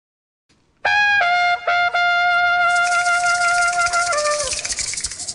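Short intro jingle on a trumpet, starting about a second in. It plays a few short notes, holds one long note, then drops to a lower note that sags away, with a bright hiss under the held note.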